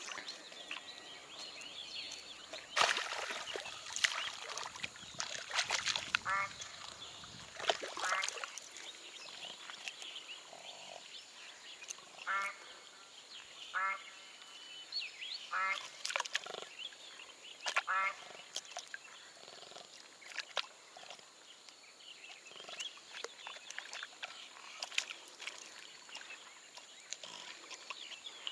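Short, harsh pulsed animal calls, repeated about six times a few seconds apart, with scattered clicks and a faint steady high-pitched whine.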